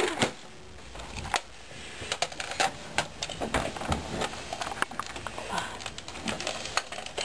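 Small plastic toy parts clicking and clattering in irregular light taps as hands fit a toy propeller onto a toy car.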